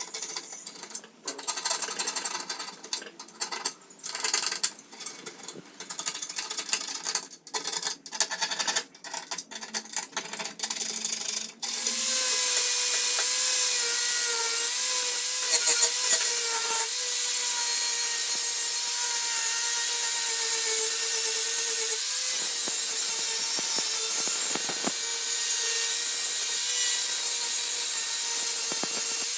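Metal of a rusty two-stroke silencer being worked by hand in irregular rubbing strokes. About twelve seconds in, an electric power tool starts and runs steadily with a high whine.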